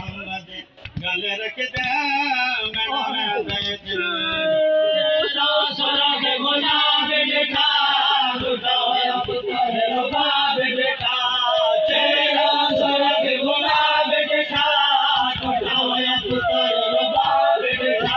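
Group of men chanting a noha (Shia mourning lament) in chorus, led by a reciter on a microphone, over a steady beat of chest-beating (matam).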